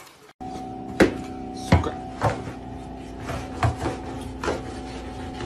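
A long rod poked under an appliance, knocking sharply about five times at irregular intervals over a steady hum.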